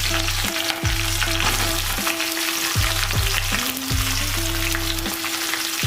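Chopped onion sizzling as it fries in hot oil in a kadai, stirred now and then with a spatula.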